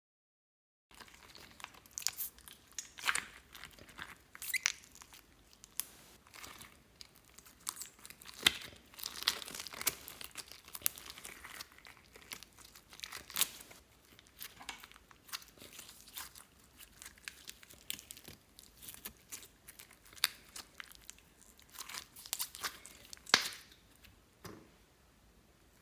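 Slime being worked by hand, with irregular sticky crackles, pops and clicks starting about a second in, busiest in the middle, with one loud pop near the end.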